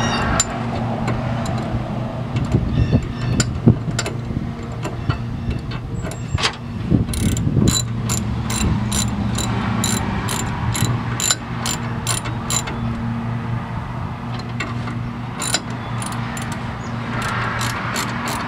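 Ratchet wrench clicking in two runs, about two clicks a second, as the steering gearbox's mounting bolts are turned. A steady low hum runs underneath.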